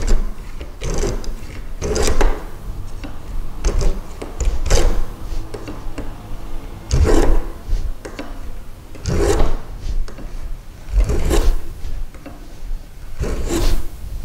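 Plow plane with a 3 mm blade cutting a groove along the edge of a wooden board: about nine push strokes of the plane, one every second or two.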